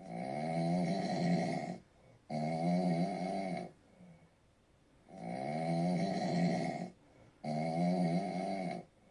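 Dog snoring: two long pitched snores close together, a pause of about a second and a half, then two more.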